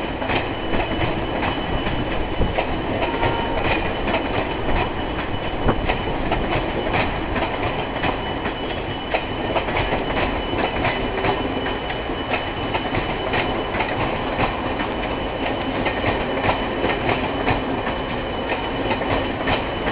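Passenger train coaches rolling along the track at low speed, the wheels clicking steadily over rail joints, with a faint thin high whine from the wheels over the rolling noise.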